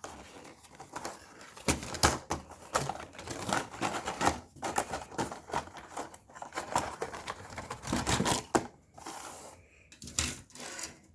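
Plastic packaging being handled and opened while small plastic parts (sprues of miniature skulls) rattle and click against each other: a dense run of irregular small clicks and crinkling rustles, easing off briefly near the end.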